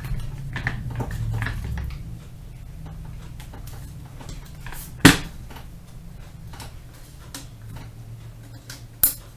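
Metal handling sounds from an AR-15-platform 9mm carbine as its takedown and pivot pins are pushed out and the upper and lower receivers are pulled apart. There is a low rumble for the first two seconds and scattered light clicks, a sharp loud click about five seconds in, and another shortly before the end.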